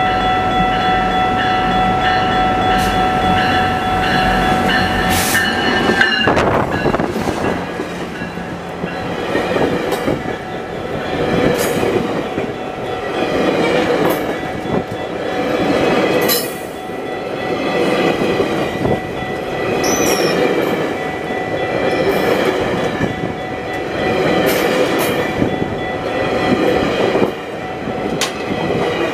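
A commuter train's horn sounds a held chord as the locomotive approaches. About six seconds in, the locomotive reaches the crossing and the bilevel passenger coaches pass close by: a loud rumble and rattle of wheels that swells about every two seconds as each coach's wheels go past.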